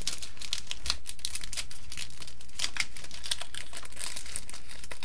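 Foil trading-card booster pack crinkling and crackling in the hands as it is opened, a dense run of small crisp crackles.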